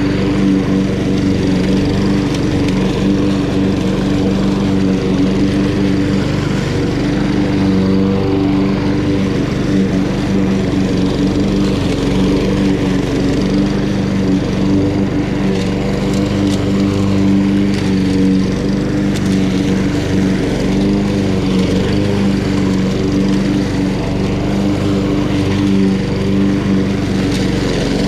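Honda GCV170 single-cylinder lawn mower engine running steadily under load while cutting grass.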